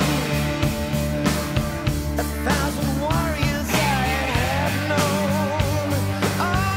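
Music: a song with a singing voice over held bass notes and a steady drum beat.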